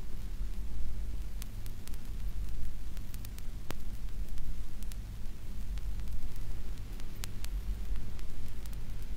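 Steady hiss and low hum of an archival recording, with scattered clicks and crackles.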